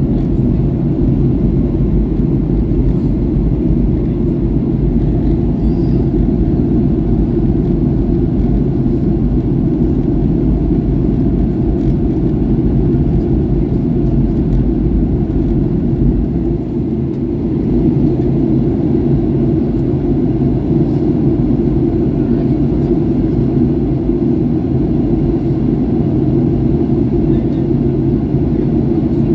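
Steady cabin noise inside a Boeing 737-800 in flight: the low rumble of its CFM56-7B jet engines and the airflow over the fuselage. It dips briefly about 17 seconds in.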